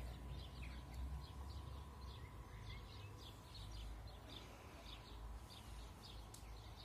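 Small birds chirping repeatedly, faint, over a low rumble.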